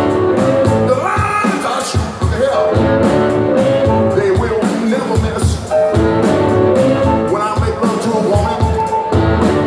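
Live electric blues band playing: a man singing over electric guitar, drums and upright double bass, with a steady beat.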